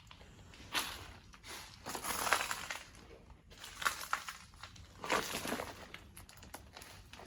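Footsteps crunching over debris on a decaying floor, a slow irregular series of gritty crunches about a second apart.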